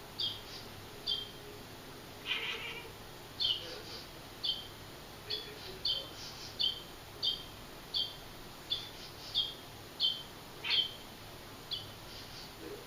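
A bird repeating a short, high chirp call over and over, about one to two a second, with one broader, lower call about two seconds in.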